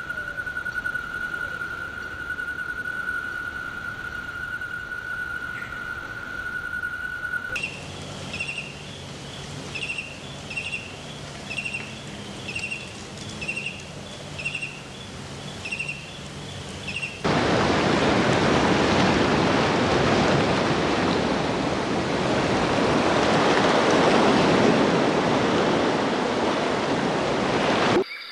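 Three nature recordings cut together. First a steady high-pitched whine, then a run of short high chirps repeating about once a second, then a loud, even rushing noise that starts abruptly and runs until it cuts off near the end.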